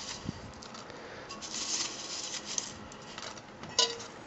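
Popped popcorn rustling and scraping against its dish as it is moved about, with a light knock early on and a short pitched squeak near the end.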